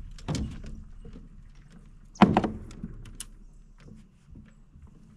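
Knocks and thumps of feet and gear against a jon boat's deck and hull, one near the start and the loudest about two seconds in, followed by a few lighter taps.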